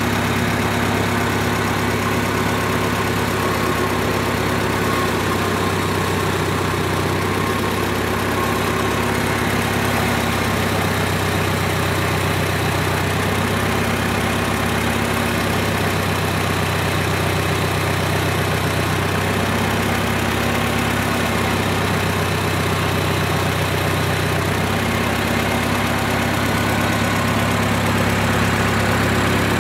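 1955 Farmall Cub's four-cylinder flathead engine idling steadily on its first run after being swapped into the tractor.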